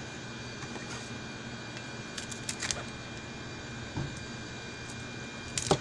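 A fish and a kitchen knife being handled on a plastic cutting board during cleaning: a few sharp clicks about two seconds in, a dull knock about four seconds in and a louder click near the end, over a steady background hum.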